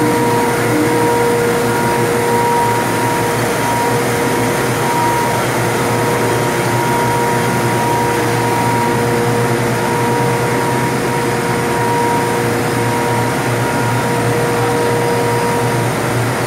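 Blown-film plastic extrusion machinery running steadily: a constant loud mechanical hum with a steady whine over a rushing of air.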